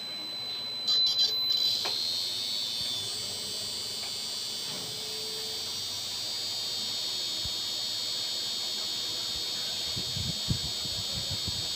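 An electronic buzzer gives a few quick, loud beeps about a second in. A steady high-pitched electronic whine of several tones follows, with a few faint knocks near the end.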